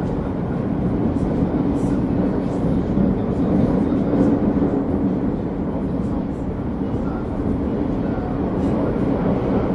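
Steady running noise heard from inside a new Korean-built Cairo Metro Line 3 train car moving through a tunnel: a low rumble and hum from the wheels and drive. Faint high ticks come through now and then.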